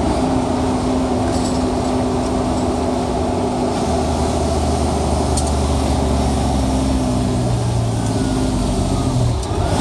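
Fire truck engine and road noise heard from inside the cab while driving, a steady low drone.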